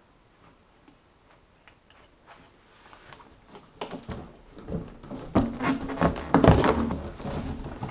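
Knocks, clatter and rustling of a person moving about and handling things close by. Only a few faint clicks at first, then louder and busier from about four seconds in.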